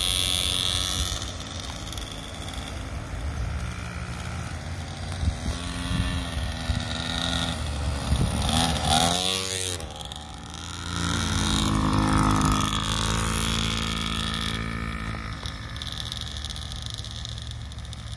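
Small kids' dirt bike engines buzzing as the children ride around. The pitch rises and falls as they rev, and the sound is loudest about halfway through, when a bike comes close.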